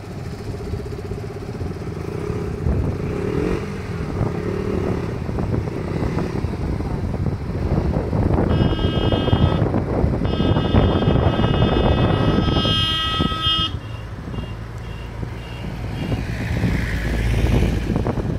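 Motorcycles running along a road, with engine rumble and wind noise. Partway through, a steady high electronic tone like a horn or beeper sounds for about five seconds with a short break, then gives several short beeps.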